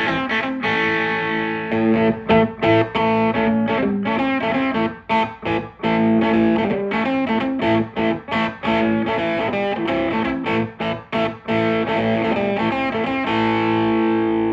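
Stratocaster electric guitar played on its bridge pickup through a Maxon Vintage Overdrive Pro pedal, a mildly overdriven run of picked notes and chords. Near the end a final chord is struck and left to ring.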